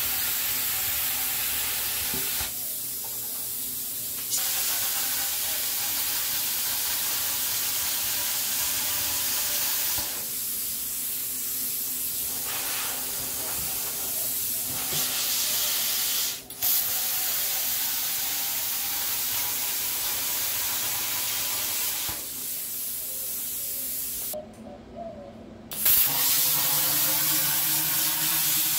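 Handheld plasma cutter cutting through the steel wall of an air compressor tank: a steady loud hiss from the torch, broken by a few pauses of a second or two.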